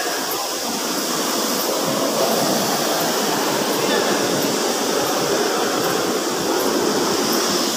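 Steady rushing of water, an even hiss with no breaks.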